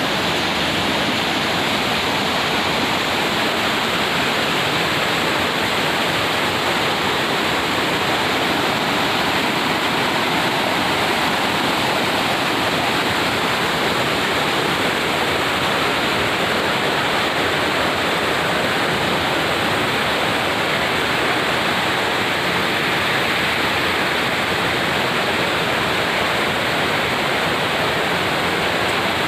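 Steady, loud rushing of water, an even unbroken roar with no separate splashes or other sounds.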